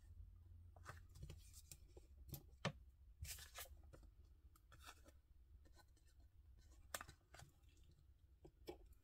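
Faint, scattered rustles and crinkles of a thin plastic overhead-projector transparency being handled and pressed flat, with a few small clicks from little embroidery scissors snipping thread ends.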